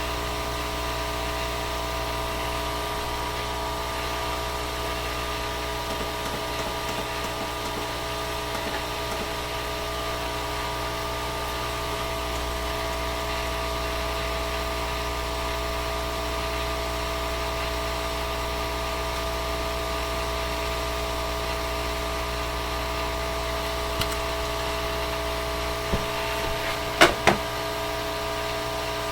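Smoke-absorber fan of a soldering iron running steadily, a little bit noisy, with a steady hum and whine. Two sharp clicks come near the end.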